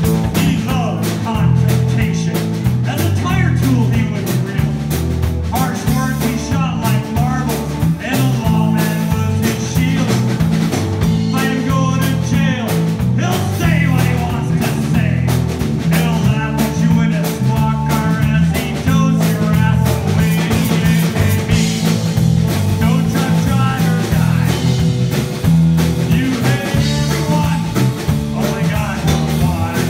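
Rock band playing live, electric guitar and drums over a stepping bass line, with a voice singing.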